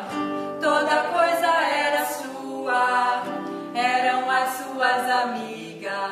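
Two women's voices singing a song together, in sung phrases a second or two long.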